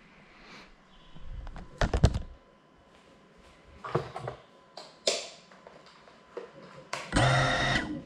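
A small FPV drone being handled and set down on a hard surface, with a rumble and a cluster of sharp knocks about two seconds in, then a few lighter clicks. Near the end comes a brief, steady mechanical buzz, less than a second long, that cuts off.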